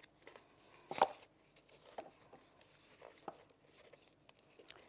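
A few faint clicks and taps, the loudest about a second in, over quiet room tone: sheets of paper being handled at a lectern.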